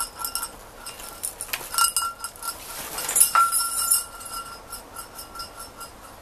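Small metal bells jingling and ringing in a string of light strikes, busiest and loudest a few seconds in, with a brief rustle of fabric.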